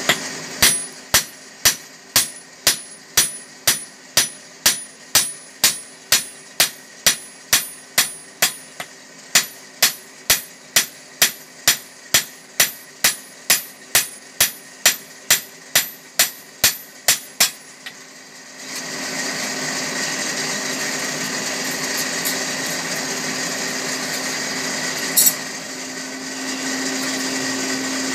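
Blacksmith's hammer beating a red-hot fodder-chopper blade on an anvil, steady ringing strikes about two a second over the faint hum of the furnace's electric blower. The hammering stops after about 17 seconds and a louder steady motor whir takes over.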